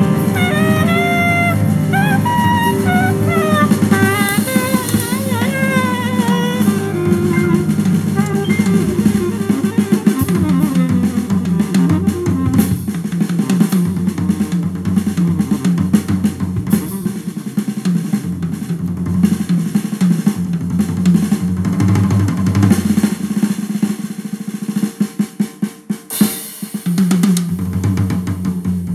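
Instrumental music played back through a pair of Dual CL270 three-way loudspeakers. A melodic lead line runs over the first several seconds, then a drum-kit-led passage takes over, with separate drum hits near the end.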